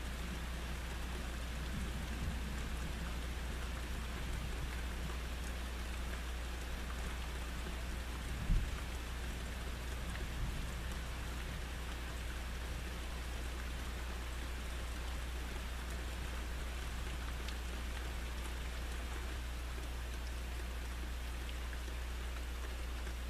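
Steady rain falling during a thunderstorm, with a single brief low thump about eight and a half seconds in.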